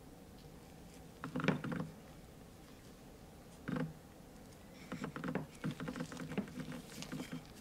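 Nitrile-gloved hands handling a wooden hammer handle and winding a leather strip around it: short bursts of rubbing and small clicks, a brief one early on, another shortly before the middle, and a busier run of quick rubs and clicks through the second half.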